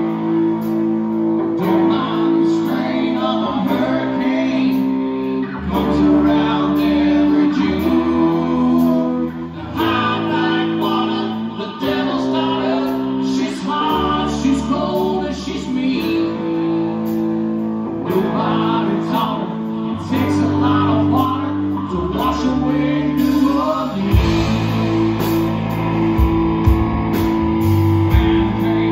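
Live band playing electric guitars over bass guitar and drums, with a steady beat.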